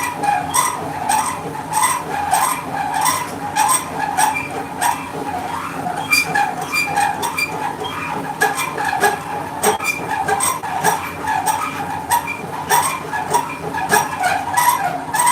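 Milling machinery running: a steady motor hum under a wavering squeal and many rapid, irregular clicks.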